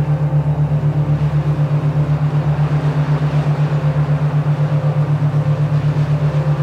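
Binaural-beat tone: a low hum that pulses evenly about six times a second, over fainter steady droning tones.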